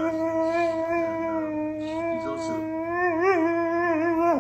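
A dog's long whining howl held on one pitch, wavering briefly about three seconds in and breaking off near the end.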